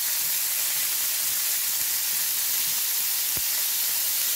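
Green asparagus sizzling in olive oil in a hot frying pan: a steady high hiss of frying, with a single short knock a little past three seconds in.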